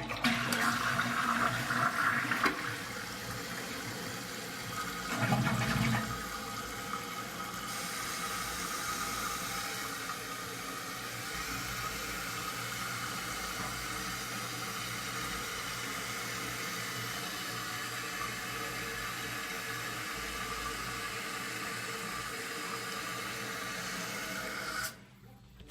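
A 2001 Eljer Savoy toilet with its tank lid off, flushed: a loud rush of water for the first couple of seconds, with a short surge about five seconds in. Then the tank refills with a steady hiss of water, which stops suddenly near the end as the fill valve shuts off.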